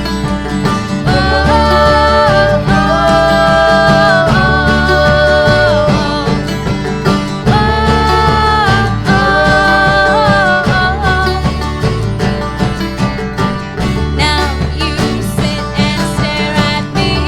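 A band playing an instrumental passage with plucked guitar and banjo-like strings over a steady bass line, and a melody of long held notes through the first ten seconds or so.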